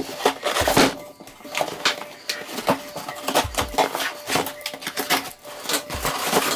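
A cardboard shipping box being cut open: the packing tape is slit down the seam and the flaps are pulled apart. The cardboard and tape rustle, scrape and crackle in many short, irregular strokes.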